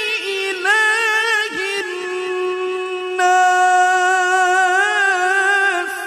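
A male qari reciting the Quran in the melodic tajweed style into a microphone: long, drawn-out held notes with wavering ornaments, moving to a new held note about three seconds in.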